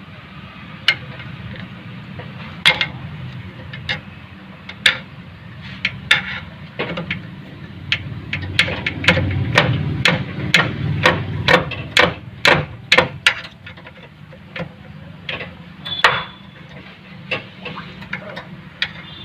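Sharp metal knocks and taps as a screwdriver is driven and levered against the leaking rear axle oil seal in a Maruti Suzuki Omni's axle housing, working the old seal loose. The knocks come irregularly, quickening into a rapid run of about two or three a second in the middle.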